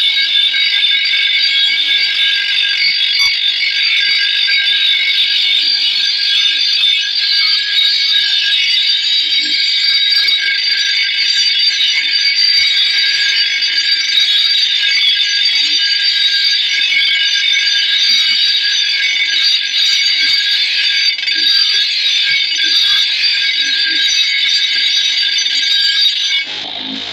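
Steel blade of a long bolo (itak) being sharpened against a spinning motor-driven grinding wheel: a loud, continuous high-pitched grinding screech with several steady ringing tones. It breaks off just before the end.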